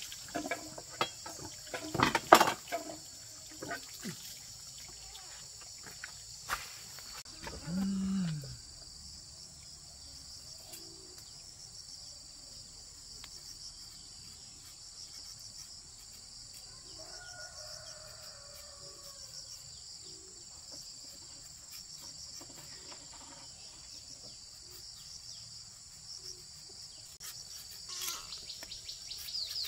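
Insects chirping in a steady, high, even chorus. A few sharp knocks sound in the first few seconds, and a short low falling sound about eight seconds in. Rapid high falling cheeps start near the end.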